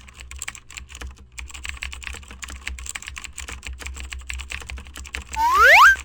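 Rapid, irregular clicking of typing on a computer keyboard, then near the end a loud rising whistle that glides upward in pitch for about half a second.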